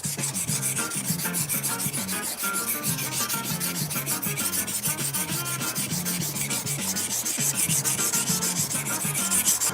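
Steel single-bevel deba knife blade being rubbed back and forth on a whetstone in quick, even strokes, several a second, grinding the bevel into a slightly convex edge.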